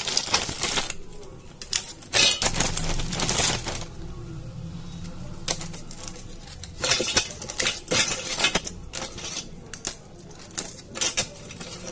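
Parle-G biscuits snapped in half by hand, the pieces dropping and clattering into a stainless-steel mixer-grinder jar: a string of dry snaps and clinks.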